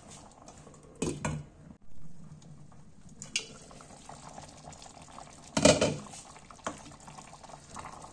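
Pot of thick green banana porridge bubbling at a simmer, with a few knocks of a lid and utensil against the steel pot, the loudest clatter just over halfway through, then a wooden spatula stirring.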